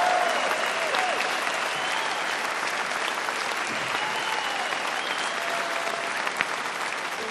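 Audience applauding, with a few voices calling out over it; the applause slowly dies down.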